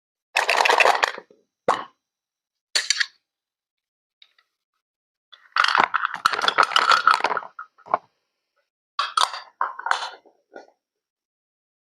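Water splashing and plopping in short bursts as a doll is bathed, with a longer stretch of splashing in the middle; each burst cuts off into dead silence.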